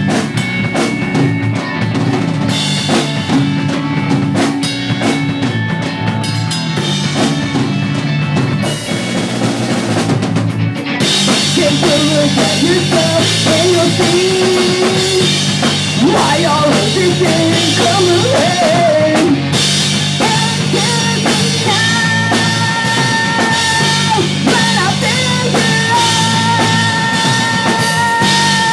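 Pop punk band playing live: drum kit with bass drum, snare and rimshots under electric guitars and bass. About eleven seconds in the full band comes in louder, with cymbals washing over the top.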